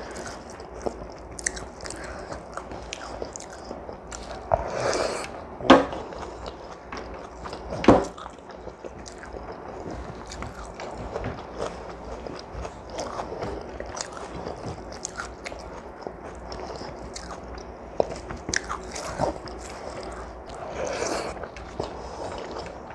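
Close-up sounds of a woman eating a rice meal with her hand: chewing and wet mouth noises. A few sharper clicks stand out, the loudest about six and eight seconds in.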